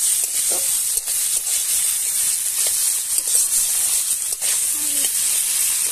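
Sliced onions, chillies and tomato sizzling with a steady hiss in hot mustard oil in a metal wok, while a steel spatula stirs them with light scrapes and clicks against the pan.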